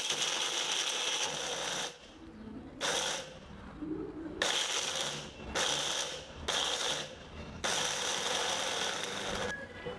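Indian mixer grinder (mixie) dry-grinding roasted coriander seeds, dry ginger, pepper and cardamom into powder, run in short bursts of a second or two and stopped and restarted several times.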